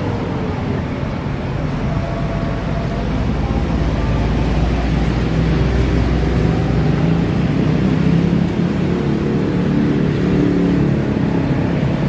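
Motor vehicle engines running, a steady deep rumble with shifting engine notes, heaviest about four to seven seconds in.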